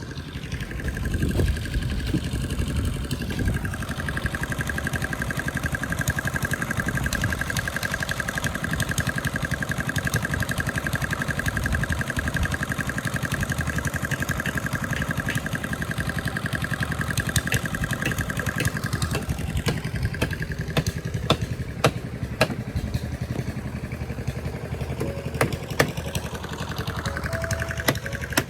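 A small engine running steadily, with a steady whine over it for much of the time and scattered sharp clacks toward the end.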